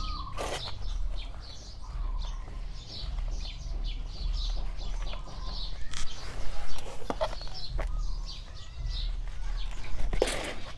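Small birds chirping over and over, with a few short knocks and rustles as gloved hands work potting mix in plastic pots.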